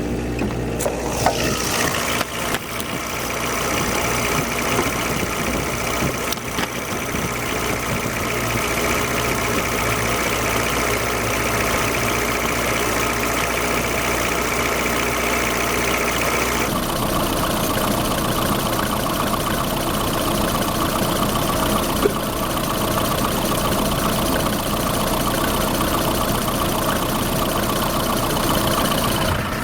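Engine idling steadily. About seventeen seconds in its tone changes abruptly, and a single sharp click comes about twenty-two seconds in.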